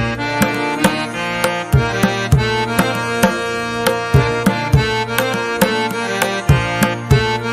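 Background instrumental music with a steady percussive beat over sustained melodic notes.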